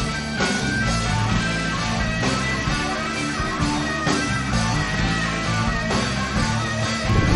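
Background music with guitar and a steady beat, growing louder and fuller near the end.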